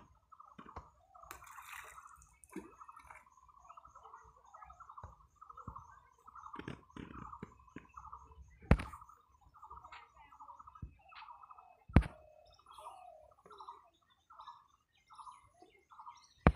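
A bird calling over and over in short warbling notes, with fainter high chirps behind. Three sharp knocks, the loudest sounds, come from handling the bamboo fishing rods.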